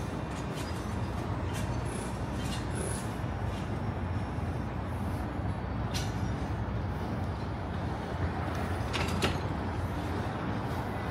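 Steady low rumble of city traffic, with a few short clicks about halfway through and again about two-thirds of the way in.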